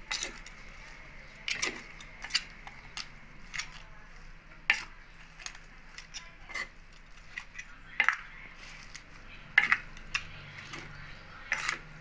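Metal spoon knocking and scraping against the sides of a wooden mortar as shredded green papaya salad is tossed and mixed, in irregular sharp clicks about once a second.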